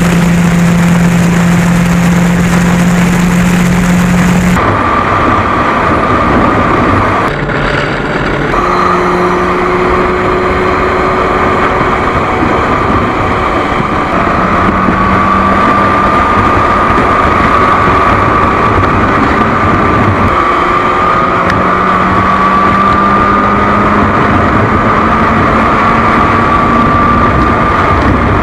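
Motorcycle engine running at a steady highway cruise, its pitch creeping slowly upward, under heavy wind rush on a bike-mounted camera. The sound changes abruptly about four and a half seconds in and again around seven to eight seconds as the shot switches.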